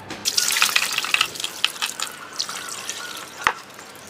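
Water splashing and sloshing in a bowl as freshly cut prawns are rinsed by hand, busiest over the first two seconds, with a single sharp knock near the end.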